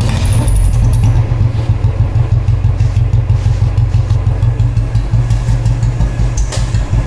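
Royal Enfield Bullet single-cylinder engine idling through an aftermarket bend-pipe 'seeti' whistle exhaust, with an even, pulsing beat. A thin high whistle from the pipe sounds at first and fades out about a second in.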